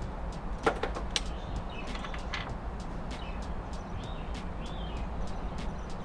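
A few sharp small clicks about a second in from a hand tool and fingers working the loose wires of an Ethernet cable end, over a steady low background hum with faint bird chirps.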